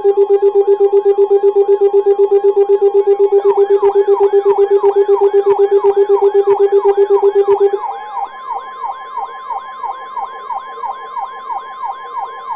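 Layered weather-alert alarms: a fast-pulsing low beep joined by a rapid, repeating siren-like warble. About 8 seconds in the beep stops and the steady NOAA Weather Radio warning alarm tone takes over under the warble, the signal that a warning broadcast is about to begin.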